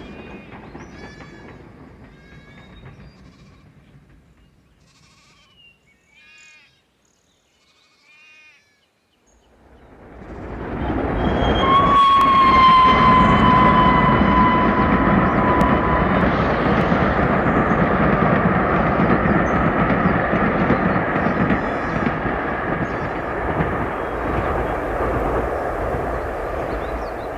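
Dubbed-on railway sound effects. A train's running noise fades away, with short high calls in the quiet that follows. About ten seconds in, a train's noise swells up loud; it sounds one long, slightly falling horn note about twelve seconds in and keeps running steadily.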